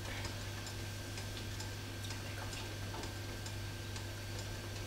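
Faint, irregular light clicks and taps over a steady low hum, typical of small hardware being handled while computer parts are fitted.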